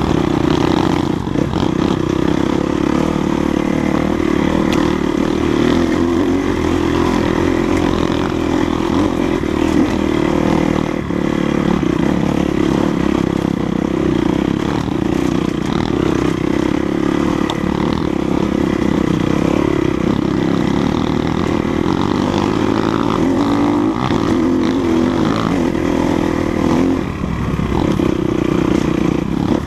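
Enduro dirt bike engine running continuously as it rides the trail, a steady drone with small throttle changes and a brief dip near the end.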